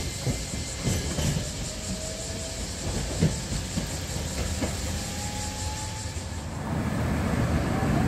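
Kagoshima City tram running away along its track: a steady rail rumble with a string of sharp wheel clacks on the rails. About six and a half seconds in, it gives way to the steady noise of road traffic.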